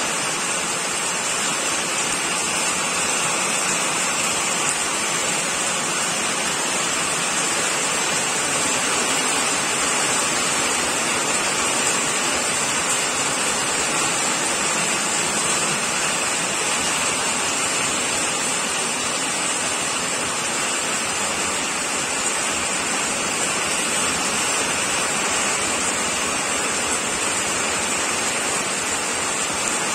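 Rain pouring steadily, a dense, even hiss with no thunder or separate drops standing out.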